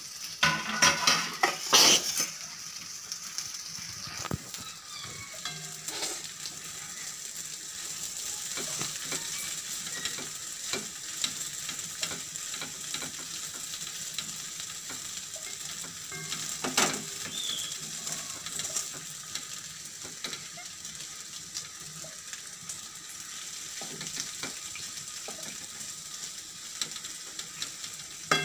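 Spiced cubes frying in oil in a metal kadai, sizzling steadily while a wooden spatula stirs and scrapes them against the pan. The scraping and knocking is loudest in the first two seconds and again a little past the middle.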